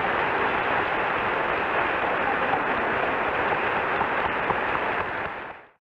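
Large audience applauding, a steady dense clatter of many hands clapping, which cuts off abruptly near the end.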